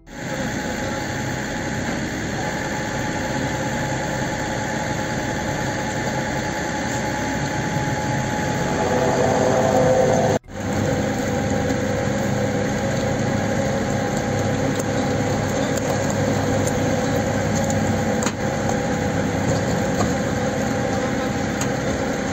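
Motor vehicle engine idling steadily, with a brief drop-out about halfway through where the footage cuts.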